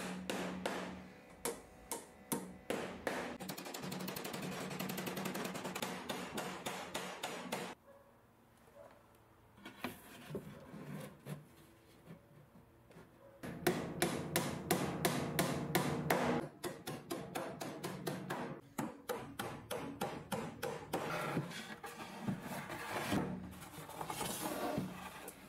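Small hammer tapping thin nails into a wooden frame, quick light taps in long runs. The tapping breaks off into a quieter stretch about eight seconds in, then starts again in runs a few seconds later.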